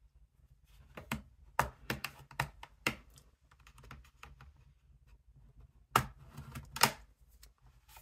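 Bottom cover of a Dell Precision 3470 laptop being pried loose with a plastic pry tool: a run of sharp plastic clicks and snaps as the cover's retaining clips come free along the edge, several in quick succession in the first three seconds and two more about six and seven seconds in.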